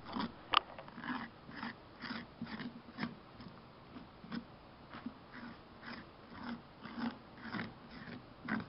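A bare hand scraping and scooping wet pumpkin pulp and seeds from inside a hollowed pumpkin: short, squelchy scraping strokes, about two a second and uneven, with a sharper click about half a second in.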